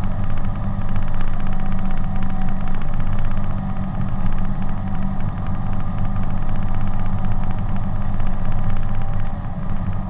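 Caterpillar D10T bulldozer's V12 diesel engine running steadily under load as the dozer moves across a coal stockpile, with a fast, even clatter from the tracks.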